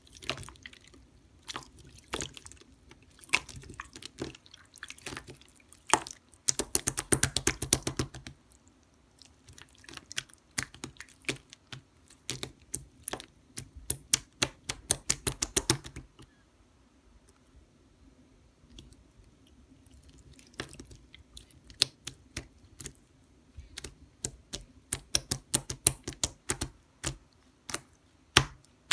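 Slime being squished and folded by hand, giving runs of small sticky clicks and air-bubble pops. A dense burst of pops comes a few seconds in, the clicks thin out to a lull around the middle, and quick clicking picks up again near the end.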